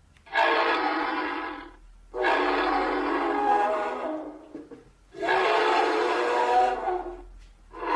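Imagined hadrosaur-style dinosaur calls built from goose, duck and sea lion recordings: three long, horn-like calls of about two seconds each, with a fourth starting near the end.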